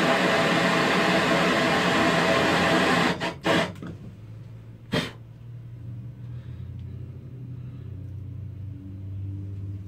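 Handheld propane torch hissing steadily and loudly, shut off about three seconds in. A few clicks and a sharp knock follow, then a low steady rumble.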